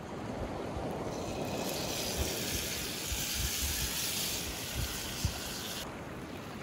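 Oil and food sizzling in a frying pan over a campfire: a steady hiss that builds about a second in and cuts off suddenly near the end.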